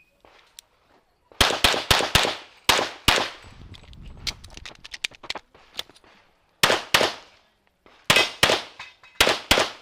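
Metrillo The Master pistol firing rapid shots in quick pairs and strings from about a second and a half in, about fifteen in all, with a break of about three seconds in the middle.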